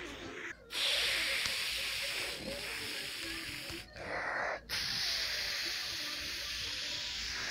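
Long hissing 'shhh' sounds made with the mouth as a play sound effect: two long steady hisses with a short break between them, about a second apart.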